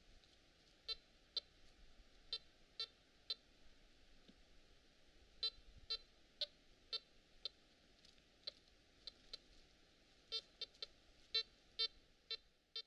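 Metal detector giving short target beeps as its search coil is swept back and forth over buried metal, about two a second in runs with short pauses between them.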